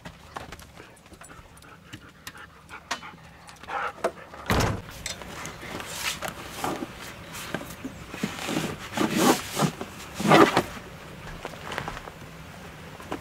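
A dog panting up close. Its sound grows busier and louder about a third of the way in, peaking about three-quarters of the way through.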